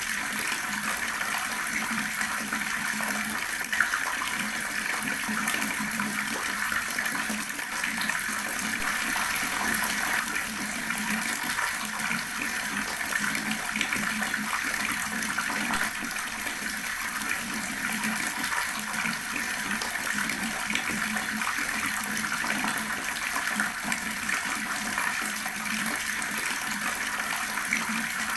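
Water running steadily from an outdoor tap, a continuous splashing flow.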